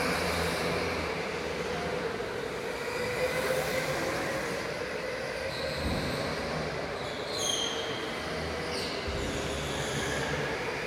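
Electric go-karts running on an indoor track, their motors giving a steady whine that rises and falls with speed, with a couple of short high tyre squeals in the second half.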